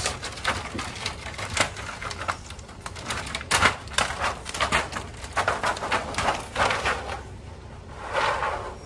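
Thin plastic reflector sheet from an LED TV backlight crinkling and crackling as it is handled and pulled off the panel, with a longer rustle near the end.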